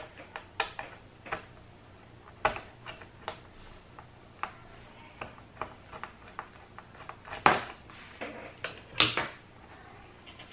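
Scattered small clicks and taps of a screwdriver and tweezers on the plastic bottom cover of a Lenovo ThinkPad X250 as a stubborn cover screw is worked loose, with two louder knocks about seven and a half and nine seconds in.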